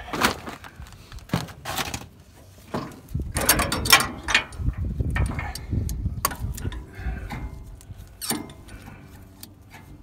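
Metal clanks, clicks and scrapes as a snowblower attachment's frame, linkage and coil lift spring are handled and hooked up to a Gravely 424 tractor. A string of separate sharp knocks comes in the first two seconds, a busier run of them follows in the middle, and they thin out toward the end.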